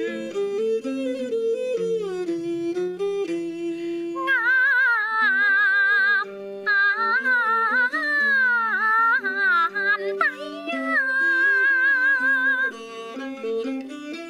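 Cantonese opera song: a woman draws out a long, melismatic sung line with wide vibrato while bowing a two-string Chinese fiddle (huqin) in accompaniment. The instrument carries the melody at first, and the strong wavering held notes enter about four seconds in, pausing briefly twice.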